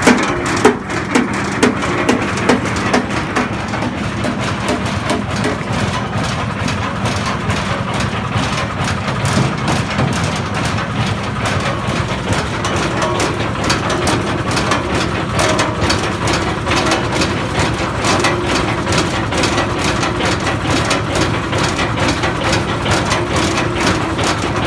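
Engine-driven animal-feed machine running steadily under load. For the first three seconds a series of sharp knocks comes about two a second as material is crushed, then a continuous churning with rapid fine clicking.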